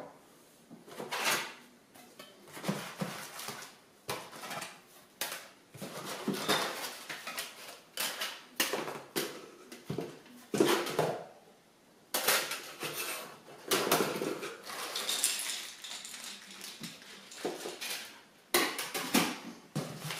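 Hard traffic-light parts being handled and lifted out of a cardboard box: irregular knocks and clatters as the pieces strike each other and the box, with scraping against the cardboard between the knocks.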